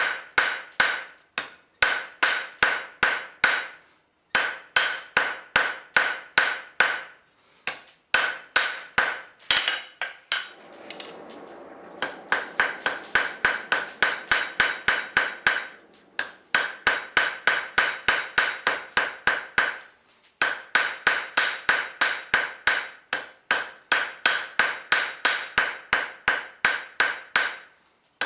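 Hand hammer striking hot square steel bar on an anvil in fast, even blows, about three to four a second, in runs broken by short pauses. The anvil rings high between blows. This is forging a tapered point on the bar's end.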